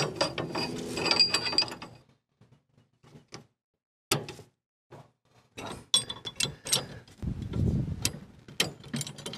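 Hand-fitting a welded steel mower-deck link arm and its fastener onto the tractor's bracket: metal clinks, rattles and clicks, with some ringing at first, a lull in the middle, then more clicking and a low rumble near the end.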